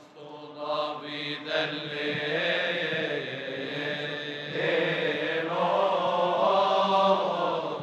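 Coptic Orthodox deacons' choir of men chanting a liturgical hymn together, a slow line held on long notes, growing louder about two-thirds of the way through.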